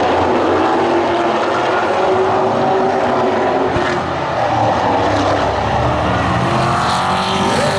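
Several Pro Late Model stock cars' V8 engines running together on the track, a loud steady drone with engine notes rising and falling in pitch as cars go by.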